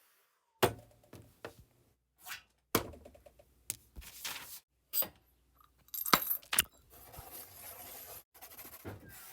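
Foley sound effects: a string of sharp knocks and clinks, irregularly spaced, with short scraping and rustling noises in between and a longer scraping stretch near the end.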